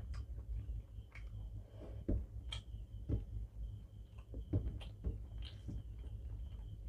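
Hand-eating sounds: fingers squishing and mixing rice with egg curry on a steel plate, with irregular soft wet clicks and smacks of chewing.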